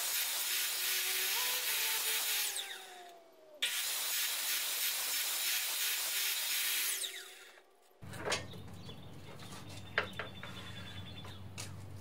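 Sliding compound miter saw cutting red oak strips: the saw runs, then its blade spins down with a falling pitch about three seconds in. It starts again at once and runs until a second spin-down around seven to eight seconds. After that a much quieter low hum with a few light knocks and clicks.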